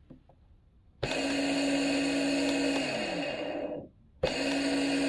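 Milwaukee M18 cordless transfer pump's electric motor switched on about a second in, running with a steady hum, then switched off and spinning down in falling pitch, and switched on again near the end. The pump is running again after its blown fuse was replaced with a new 30-amp fuse.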